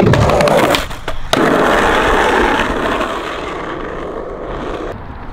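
Skateboard wheels rolling fast over rough, broken asphalt. It opens with sharp clacks, breaks off briefly about a second in, then the rolling comes back loud and slowly fades away.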